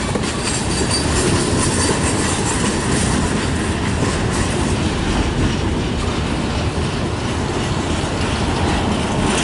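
CN freight train's auto rack cars rolling past: a steady rumble of steel wheels on the rails with a clickety-clack over the rail joints.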